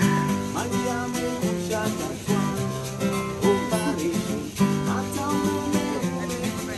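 Live acoustic guitar strummed in chords, with a man's voice singing along.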